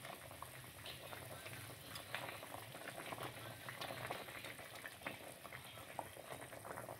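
Pot of sour bamboo shoot and snakehead fish soup bubbling on the boil, a steady faint crackle of many small pops, with a ladle stirring through it.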